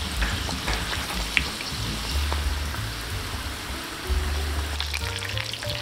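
Breaded chicken momos deep-frying in hot oil: a steady sizzle with fine crackling.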